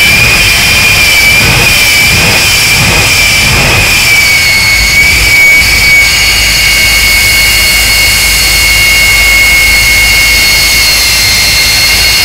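Jet engine of a jet-powered semi truck running with its afterburner lit: a loud, continuous turbine roar with a high whine. The pitch of the whine wavers for the first few seconds, then holds steady from about four seconds in.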